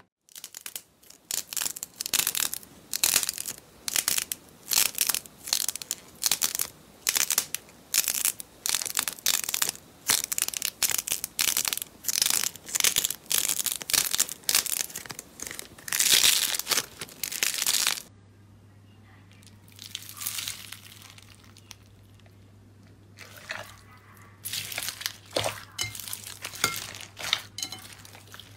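Hands squeezing, kneading and pressing slime, giving rapid runs of short sticky crackles and pops. They fall away to a quiet stretch with a faint low hum, then start up again near the end.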